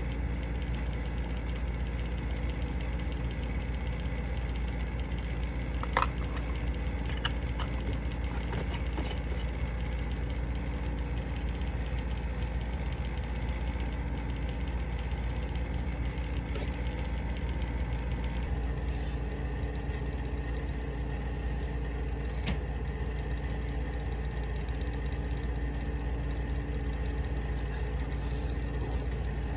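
A steady low machine hum, even in level, with a short click about six seconds in.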